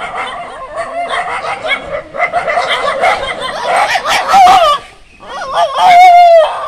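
Dogs yelping and whining in a tense face-off between a Doberman and a pack of stray dogs, with a long drawn-out whine near the end.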